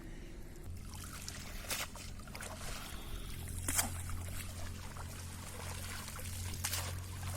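Water trickling and splashing, with three short sharp splashes, over a steady low hum that starts just under a second in.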